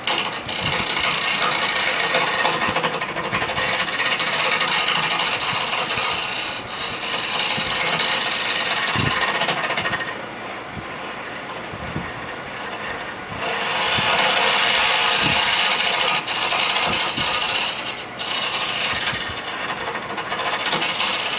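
Homemade carbide-insert turning tool cutting a spinning wooden block on a wood lathe: a steady scraping hiss of wood being sheared. The cut eases off about ten seconds in, comes back strongly a few seconds later, and lightens again near the end.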